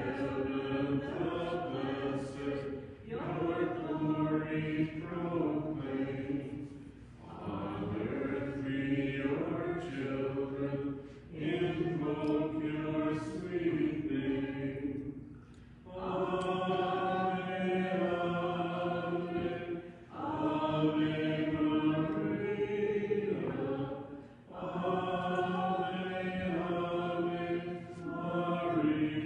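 A hymn being sung: the offertory hymn at Mass, in phrases of about four seconds with short breaks between them.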